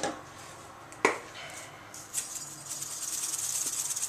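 A couple of sharp clicks, then from about two seconds in a dense, fine rattling hiss of dry seasoning granules being shaken from a packet into a bowl.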